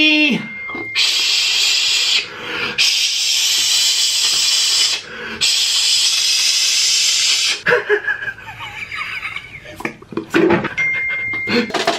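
A man hissing loudly through his mouth in three long hisses with short breaks between them, followed by a few seconds of scattered short mouth noises and clicks.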